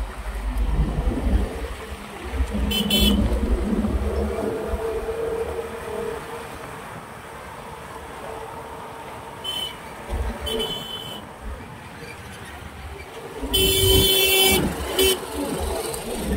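Road traffic with a low rumble of engines and tyres, and vehicle horns honking: short toots about 3 s and 10 s in, and a longer, louder blast near the end.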